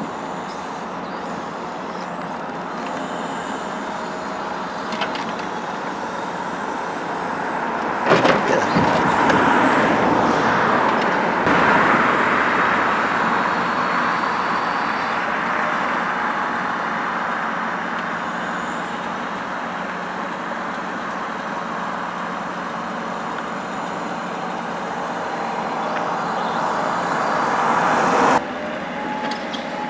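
Truck-mounted Kesla timber crane loading logs: the truck engine and crane hydraulics run steadily, with a cluster of knocks from logs about eight seconds in and a louder stretch for the next few seconds.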